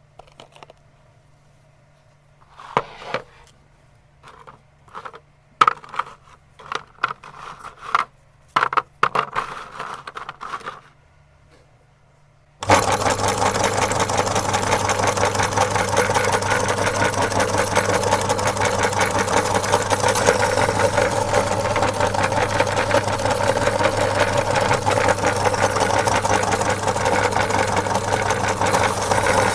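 A run of short knocks and rustles from handling. About twelve seconds in, an electric meat grinder's motor switches on suddenly and runs steadily with a low hum, grinding Oreo cookies.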